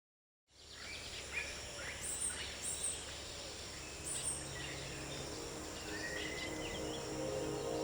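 Outdoor natural ambience fading in about half a second in: a steady background hiss with several short bird chirps scattered through it.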